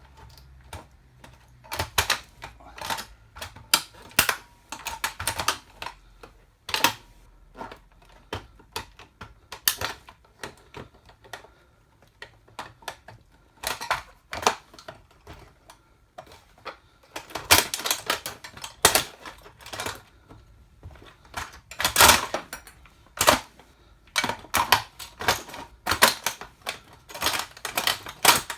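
A toy car cracking and crunching under platform high heels: irregular sharp clicks and cracks, sometimes in quick clusters, with short pauses between.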